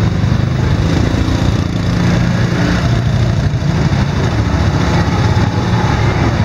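Motor scooter engine running steadily at low speed, heard from on the moving bike, with the engines of other scooters close ahead.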